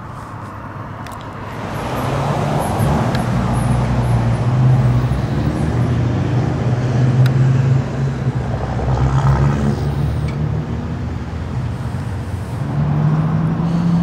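Road traffic: a motor vehicle's engine running steadily with tyre noise, growing louder about two seconds in and staying loud.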